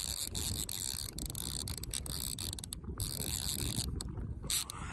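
Old Hardy fly reel's click-and-pawl ratchet buzzing rapidly as line moves on or off the spool while a heavy trout is played, with a few brief breaks and easing off near the end.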